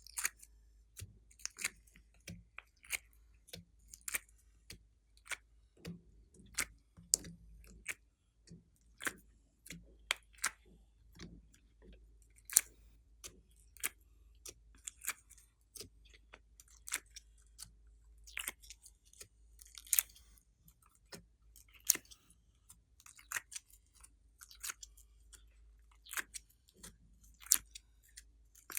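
Glossy slime being squished and poked by hand: a long run of sharp, wet clicks and pops, irregular, about one or two a second.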